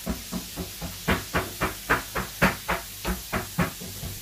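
A steady run of about fifteen sharp knocks, about four a second, some louder than others, stopping a little before the end.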